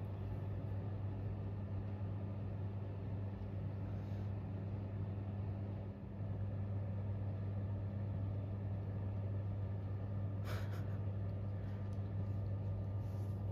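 Pet drying box's fan running with a steady low hum while it dries freshly bathed cats. A short burst of noise about ten seconds in.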